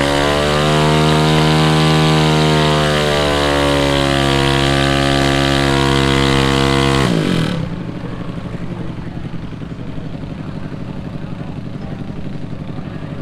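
Motorcycle engine held at high revs, its pitch sagging slowly, then cut off suddenly about seven seconds in. After that a lower, pulsing rumble of engines idling goes on.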